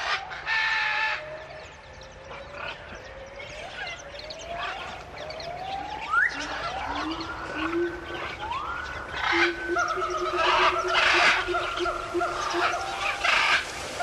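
Birds calling: a mix of short chirps and several rising whistled calls that level off into held notes, growing louder and busier toward the end.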